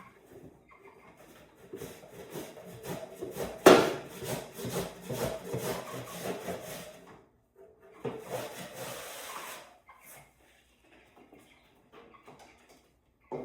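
Scraping and rubbing as a bird cage is cleaned out, in two long stretches, with one sharp knock about four seconds in.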